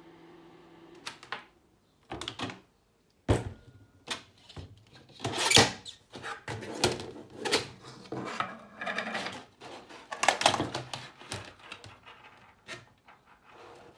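A steady electrical hum stops about a second in, followed by a string of irregular knocks, clicks and clatter, like objects being handled and set down.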